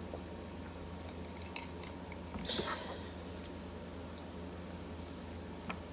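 Close-up chewing and mouth sounds of a person eating, with small wet clicks and a louder smack about two and a half seconds in, over a steady low hum.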